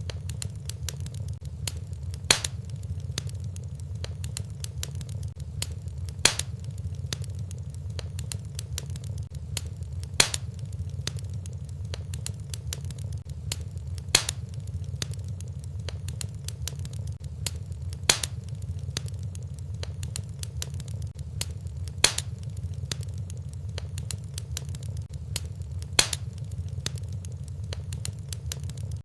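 Wood fire crackling in a fireplace: a steady low rumble of flames under many small crackles, with a sharp louder pop about every four seconds.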